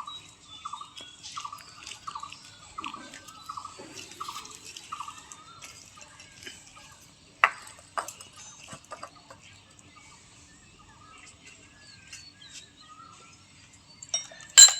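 A bird calling the same short note over and over, about two to three times a second, for the first five seconds, then falling quiet. A few light clicks follow, and a sharp knock comes near the end.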